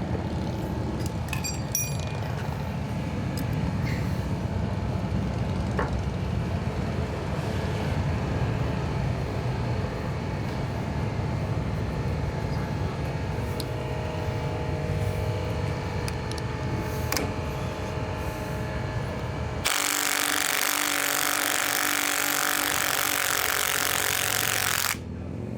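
Workshop noise: a steady low rumble with scattered small clicks and knocks from work on a motorcycle fork. Near the end a loud steady hiss starts abruptly, runs for about five seconds and cuts off suddenly.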